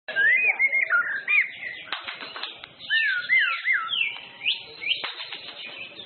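White-rumped shama (murai batu) singing: a fast run of swooping whistled notes that rise and fall, broken by short chattering notes about two seconds in and again near the end.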